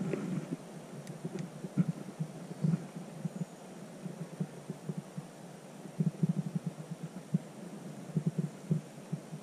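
Wind buffeting the microphone in irregular low gusts, with a few faint ticks in the first two seconds.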